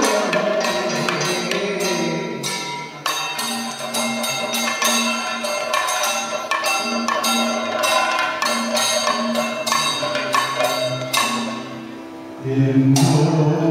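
Kathakali percussion accompaniment: chenda and maddalam drums playing a fast rhythm of struck beats with small metal cymbals. About twelve seconds in, the singers' voices come in loudly over the drumming.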